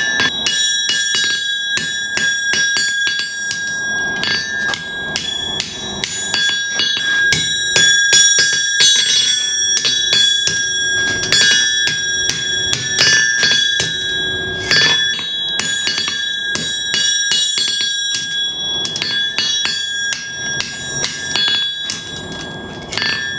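Blacksmith's hand-forged ball-peen hammer striking a red-hot steel bar on an anvil in a steady run of rapid blows, bending it over the anvil's edge. Between blows the hammer bounces onto the anvil, which rings with clear high tones.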